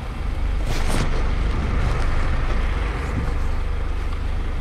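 Street traffic: a steady low rumble of passing and idling vehicles with wind on the microphone, and a brief crackle about a second in.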